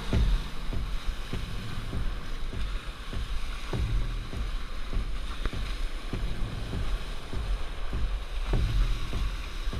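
Hobie Wildcat catamaran hull slapping through chop, with water rushing along the hull and spray hissing, and wind buffeting the boat-mounted camera's microphone as a low rumble. The hull slaps come irregularly, several a second.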